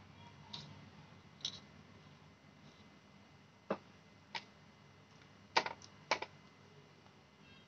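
Short, sharp clicks and taps of a kitchen knife working on shallots as they are peeled by hand, about six in an uneven rhythm, the loudest two close together about two-thirds in.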